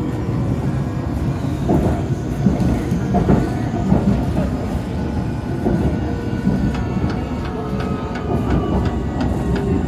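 London Underground District Line train running, heard from inside the carriage: a steady low rumble with rattles, wheel clicks and knocks, and a faint steady whine.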